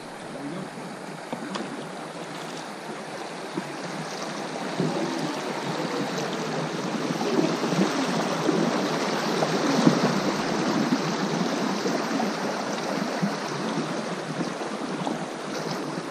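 Water of a small river's shallow rapids rushing and splashing around an inflatable boat as it drifts through. The sound grows louder toward the middle and eases a little near the end.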